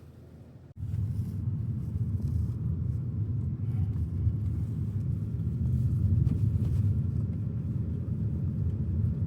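Low, steady rumble of a moving car heard from inside the cabin. It comes in abruptly less than a second in, after a brief quieter stretch.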